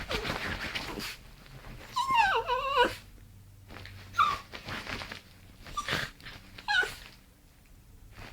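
Rat terrier making a high, wavering whine-growl lasting about a second, then shorter whimpers twice more, after a brief noisy rustle at the start.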